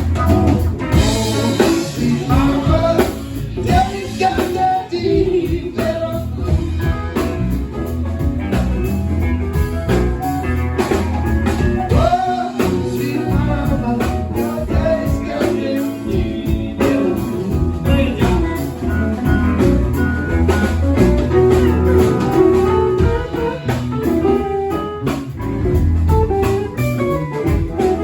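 Live band playing: electric guitar, bass and drum kit, with a singing voice.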